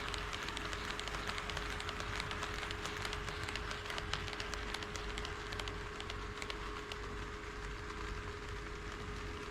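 HO scale model train running on KATO Unitrack sectional track: a steady rattle of metal wheels with many small clicks over the rail joints, over a constant hum.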